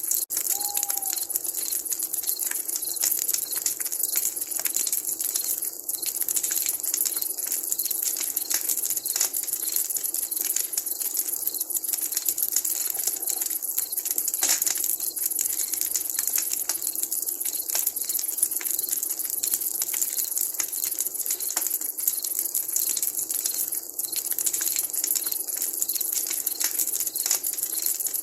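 Wood campfire crackling, with frequent sharp pops and snaps over a steady hiss.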